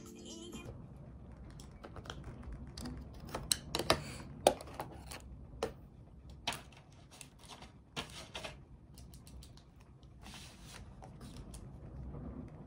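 Pen writing on the paper of a textbook, with a scatter of sharp taps and clicks that are loudest a few seconds in, and a short scratchy stretch near the end. Background music cuts off just after the start.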